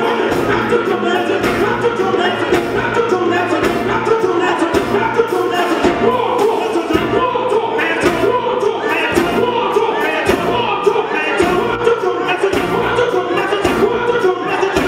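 Live gospel music: a band with drums and guitar playing a steady beat, with male lead vocals and backing singers.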